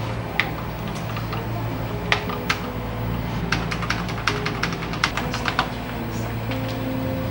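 Keys clicking on the keyboard of a roughly forty-year-old Sharp MZ-80 computer: irregular single keystrokes, coming in a quicker run in the second half. Background music plays under it.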